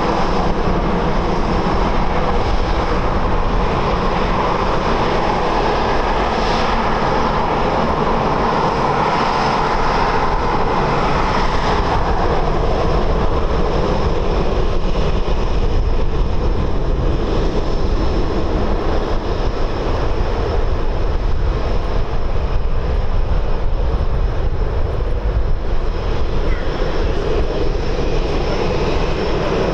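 Boeing 737-800's CFM56-7B turbofan engines running at taxi power as the airliner taxis and turns: a steady jet rush with a thin high whine on top.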